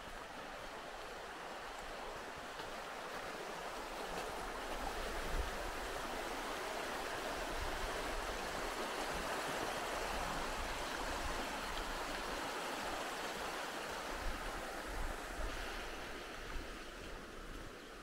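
A shallow rocky river rushing over small rapids: a steady rush of water that builds toward the middle and eases near the end.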